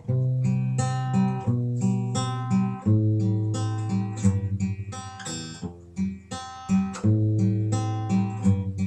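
Steel-string acoustic guitar played by hand: chords picked and strummed in a steady repeating pattern over ringing bass notes, changing chord about every second and a half.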